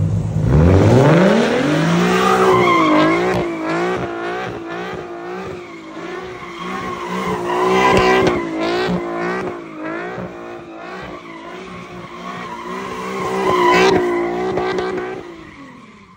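Nissan Z coupe's V6 revving hard while doing donuts, with tyres squealing and skidding on the asphalt. The revs climb sharply about half a second in, then rise and fall repeatedly with the throttle, and the sound fades out near the end.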